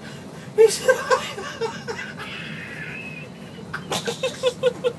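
A man laughing hard: a burst of laughter about half a second in, a thin high wheeze in the middle, then a quick run of short "ha" pulses near the end.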